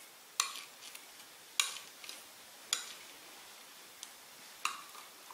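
A utensil clinking against a baking dish as bread pudding is dished up: four sharp clinks about a second apart, a fainter one between the last two, and small scrapes after them.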